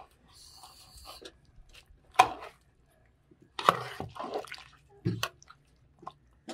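Water pouring and splashing, with a hissing stream early on followed by three sharp splashes or knocks spaced about a second and a half apart.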